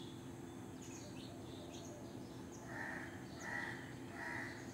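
Faint crow cawing: a run of evenly spaced calls starting a little past halfway, about one every 0.7 seconds, with smaller birds chirping before them.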